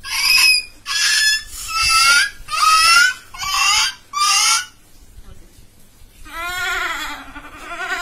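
A boy imitating animals with his voice through cupped hands: first a run of about six short, shrill, bird-like calls, then, after a pause, a long wavering goat-like bleat.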